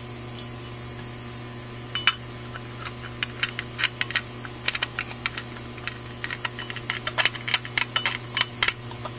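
Small irregular metallic clicks and taps of a screwdriver tip working brass main jets into a Rochester 2G carburetor float bowl, starting about two seconds in and coming more often near the end, over a steady electrical hum.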